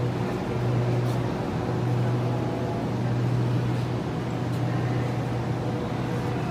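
A large engine running steadily: an even low hum with a few faint higher tones above it, unchanging throughout.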